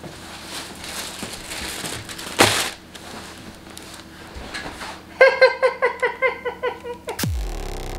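Thin plastic carrier bag rustling and crinkling as it is set down on a counter, with one louder crinkle about two and a half seconds in. From about five seconds a quick run of bright musical notes, about five a second, ends in a sound that falls steeply in pitch into a low hum.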